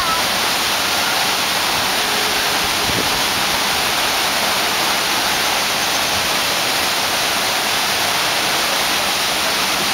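Steady, unbroken rush of water pouring over an artificial surf wave.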